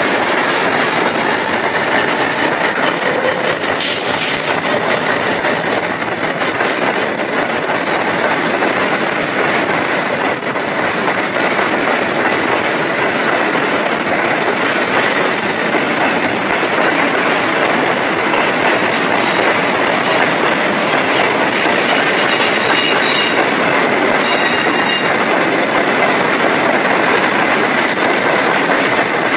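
Freight train wagons rolling past at close range: a loud, steady rumble and clatter of steel wheels on rail. Thin high-pitched wheel squeal rises over it for several seconds in the second half.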